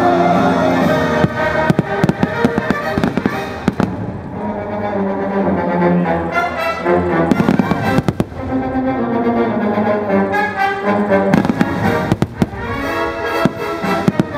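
Aerial fireworks shells bursting in rapid clusters of sharp bangs, in three bouts, over loud orchestral show music with brass.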